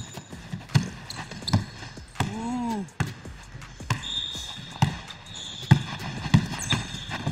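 Basketball dribbled on a hardwood gym court, a sharp bounce roughly every half second, with a short voiced 'ooh' about two and a half seconds in and a high squeak in the second half.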